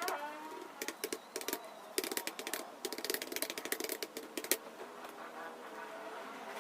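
Computer keyboard typing: rapid, irregular keystroke clicks that stop about four and a half seconds in, leaving only faint background sound.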